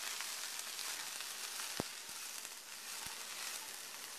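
Hot sauté pan of olive oil and toasted garlic sizzling steadily, with two light clicks partway through.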